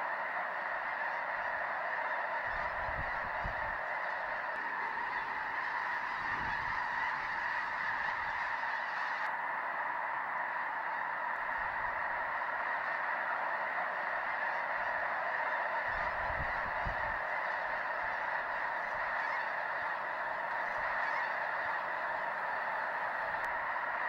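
A huge flock of snow geese calling all at once: a dense, unbroken chorus of honks.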